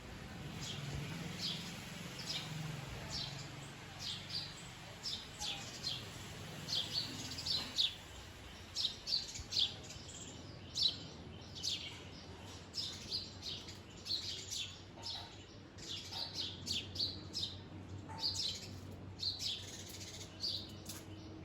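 Small birds chirping: many short, high chirps in quick succession, some overlapping, growing busier about a third of the way in.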